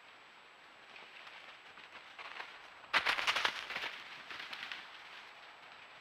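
Dry, frozen leaf litter rustling and crunching under a deer's hooves, with a loud burst of rapid crackling about three seconds in that fades over the next second or two.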